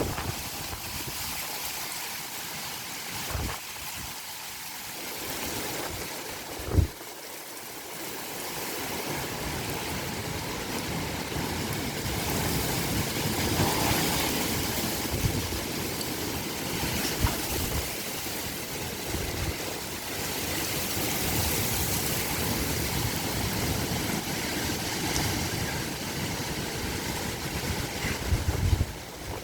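Strong, gusty storm wind, a steady rushing noise that swells and eases, with wind buffeting the microphone. A single sharp thump about seven seconds in.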